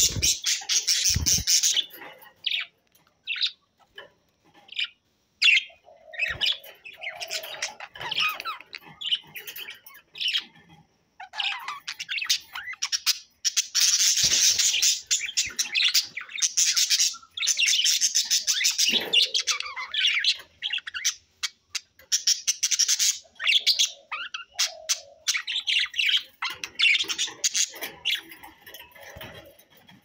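A group of pet budgerigars chattering and warbling, in dense stretches of fast chirps broken by short gaps with only single chirps.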